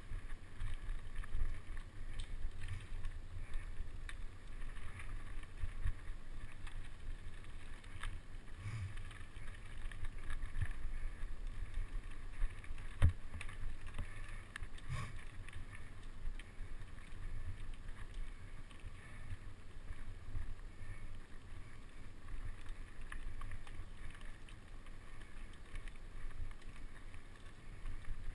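Mountain bike ridden along a bumpy dirt forest trail: a steady rumble of tyres, rattle and wind on the microphone, with a few sharp knocks from bumps, the loudest about 13 seconds in.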